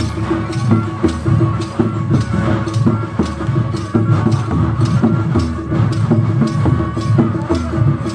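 Nagara drums beating a steady driving rhythm of strikes, with a held droning tone running over the drumming.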